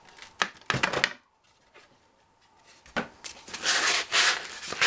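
An MDF template and tabletop pattern being handled: a few light wooden knocks and clicks in the first second. After a short pause, a click, then several swishing rubbing strokes across the MDF surface.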